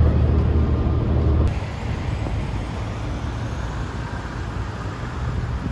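Low rumble of a vehicle or road traffic. It drops abruptly about one and a half seconds in to a quieter, steady noise.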